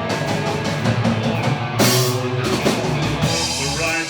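Live rock band playing an instrumental passage between sung lines, with drum kit and guitar; a crash about two seconds in.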